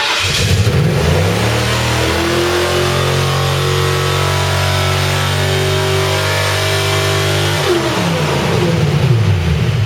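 Freshly rebuilt Ford Crown Victoria 4.6-litre V8 catching and at once racing up to high revs. It holds steady near redline for about six seconds, then winds down and cuts off near the end. One of the owners blames the runaway revving on a throttle stuck open.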